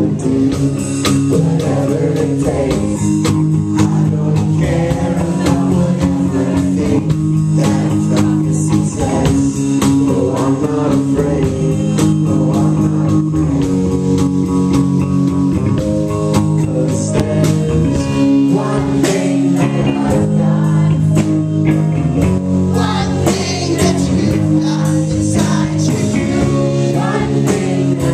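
Live rock band playing an instrumental passage: electric guitar and bass over steady drums, with some singing.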